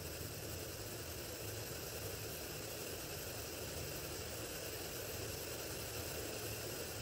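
Oat Foundry split-flap display with many flap modules flipping at once, their clicks blending into a steady, even rattle.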